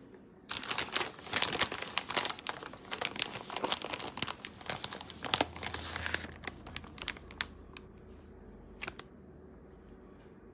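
Crinkling and tearing of packaging, such as aluminium foil or a plastic cheese bag, being handled. It is dense and crackly from about half a second in to about six seconds in, then trails off into a few scattered crinkles.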